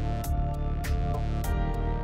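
Background music with a steady beat: held instrumental notes over regular percussive hits, about three a second.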